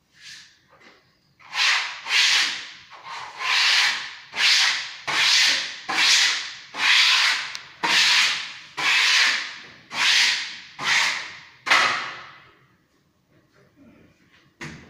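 A hand-held pad rubbed back and forth against a wall in quick, even, raspy strokes, about three every two seconds, like sanding, before the strokes stop. A short knock comes near the end.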